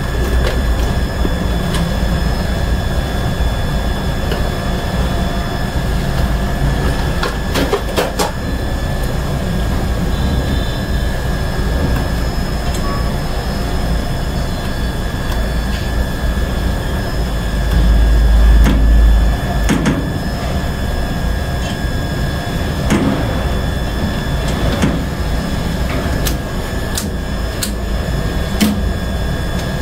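Elevator machine-room equipment giving a steady low hum with a constant high-pitched whine over it. A few sharp clicks come through, about eight seconds in and several times near the end.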